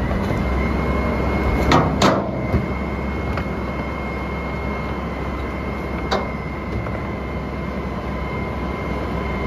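Autocar Xpeditor garbage truck idling with a steady high whine over the engine, while trash and a cardboard box are tossed by hand into the steel carry can. There are about four sharp knocks, the loudest around two seconds in and one more a few seconds later.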